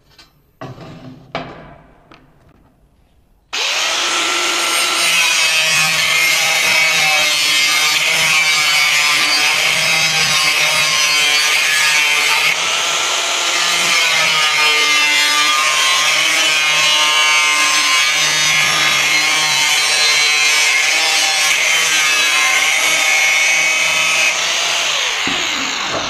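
Handheld angle grinder cutting through a perforated steel cable tray. It starts suddenly about three and a half seconds in, after a few light handling sounds, and runs loud and steady, its pitch wavering as the disc bites. It dies away just before the end.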